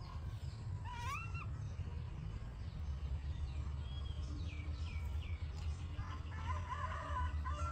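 A few short, high animal calls over a steady low rumble: a rising chirp about a second in, several quick falling chirps in the middle, and a cluster of warbling squeaks near the end.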